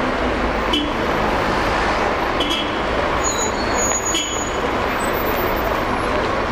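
Steady city-street traffic noise: a continuous even rumble and hiss, with a few brief high squeaks about a second, two and a half and four seconds in.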